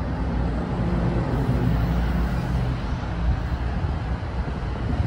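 NJ Transit multilevel passenger coaches rolling past the platform: a steady rumble of steel wheels on rail with a low hum underneath.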